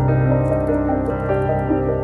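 Background piano music, soft sustained chords with a slow melody.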